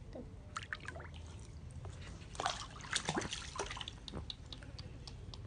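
Water splashing and dripping in a shallow paddling pool as a baby monkey is bathed by hand, a run of quick irregular splashes that is busiest around the middle.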